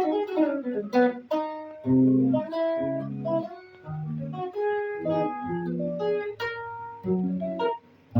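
Guitar playing a melody of single plucked notes, each ringing on, with deeper bass notes under it. A quick falling run comes about a second in.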